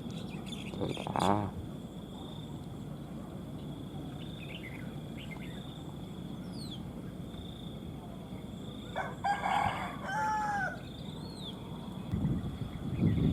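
A rooster crowing, loudest about nine to ten seconds in, over a steady high drone of insects. A few short, high, falling bird calls come between, typical of red-whiskered bulbuls.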